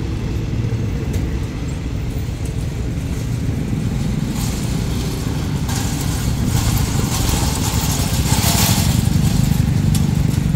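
Passenger carriages rumbling past on the rails, then motorcycle and car engines as the road traffic held at the level crossing moves off. Hissy noise comes and goes from about halfway through, and the engine sound grows a little louder near the end.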